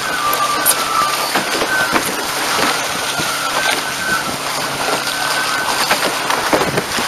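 Water and wind rushing past a fast-sailing A-Class catamaran, with spray hissing off the hull. A thin, wavering high whistle runs through the rush.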